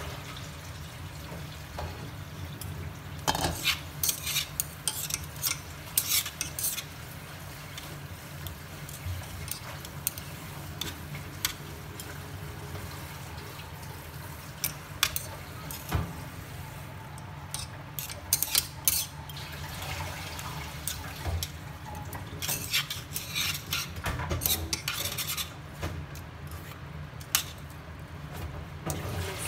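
A metal spoon stirring soup in a stainless steel pot, clinking and scraping against the sides in several bursts, over a steady low hum.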